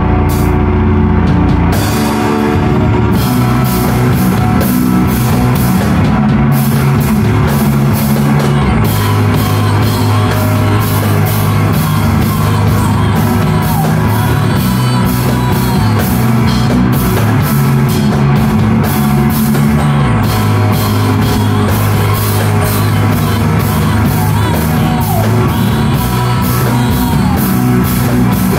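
A rock band playing loud live: a drum kit keeps a steady beat under dense, heavy low notes from the amplified instruments.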